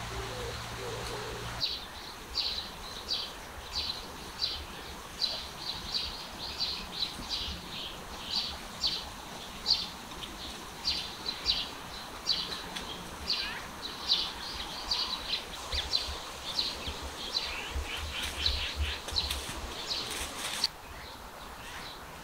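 A bird calling with short, high chirps repeated about once or twice a second over a steady outdoor background. The calling starts abruptly a couple of seconds in and cuts off near the end.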